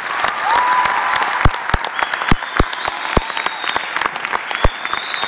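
Theatre audience applauding: a dense, steady wash of clapping with single sharp claps standing out.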